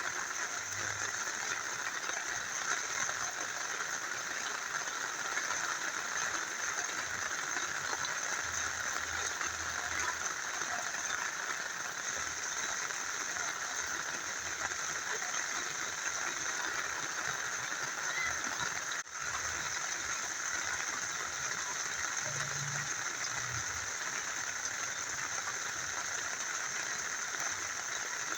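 Rain falling together with a small river flowing: a steady, even rush of water that dips for an instant once, about two-thirds of the way in.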